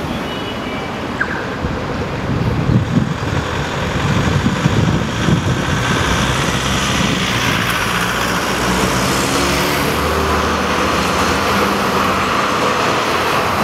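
City street traffic: a minivan and cars pulling away through the intersection after the lights change, then a tram passing close by, growing louder toward the end.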